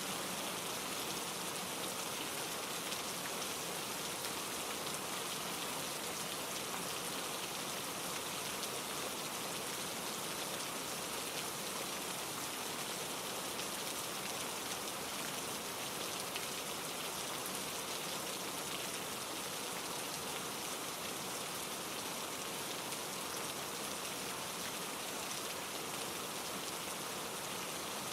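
Steady rain falling on trees, with a mountain stream tumbling over granite rocks and wind through the leaves and pine needles, an even, unchanging hiss.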